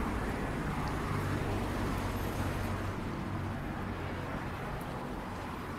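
Street traffic: a motor vehicle's engine makes a low steady hum over general road noise, easing off slightly over the last couple of seconds.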